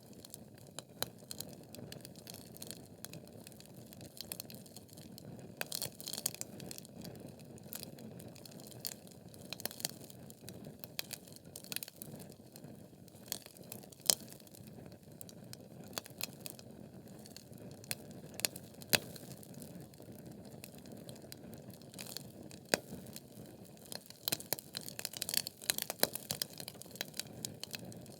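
Wood fire burning in a fireplace: a steady low rumble of flames under irregular crackles and sharp pops from the logs, with the crackling growing denser near the end.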